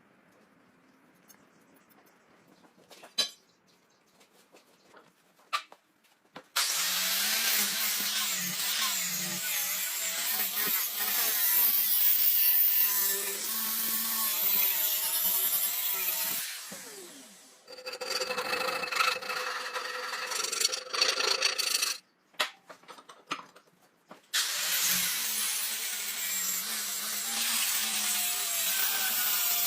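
A power grinder grinding the steel of a blade, running in three long passes of harsh, continuous grinding with a whine that wavers with the pressure. The passes are separated by short pauses, and a few sharp clicks come in the quiet opening seconds.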